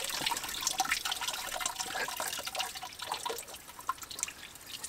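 Coolant dripping and trickling out of the engine block as the water pump is worked free, with many small irregular drips and light clicks from the pump being handled.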